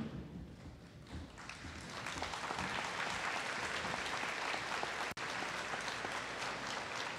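Audience applauding, building from about a second and a half in to steady, dense clapping, with a momentary dropout about five seconds in.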